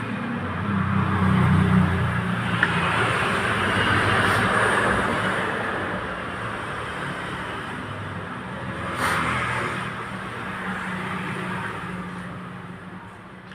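A motor vehicle passing close by: an engine hum with road noise that swells and fades, with a second, shorter swell about nine seconds in.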